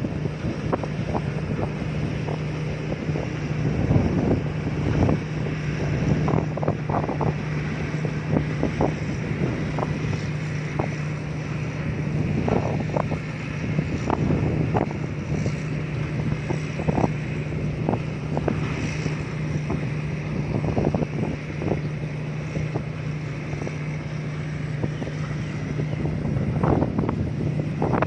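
Combine harvester engine running steadily with a constant low hum, crossed by frequent short irregular bumps and wind noise on the microphone.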